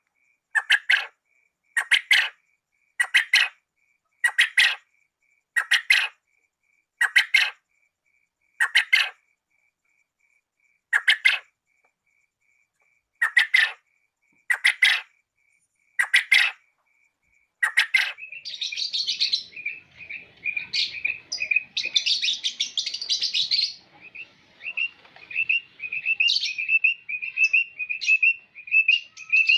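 Quail calling: a short, sharp call repeated about every second and a half. About eighteen seconds in, it gives way to a fast, chattering run of quick notes, several a second, with rougher bursts mixed in.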